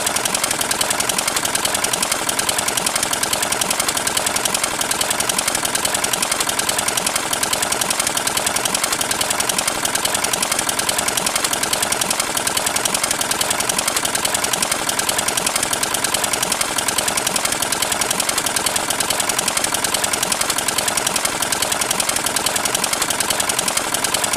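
A small single-cylinder diesel engine running steadily, with a fast, even knocking beat that does not change.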